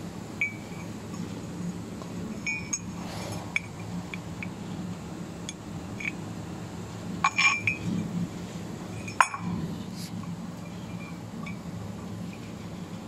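Small laser-cut steel tube pieces and a steel rod clinking and tapping against each other as the rod is pushed through the cut holes, with scattered light metallic clicks and a louder cluster of clinks a little past the middle. A steady low hum runs underneath.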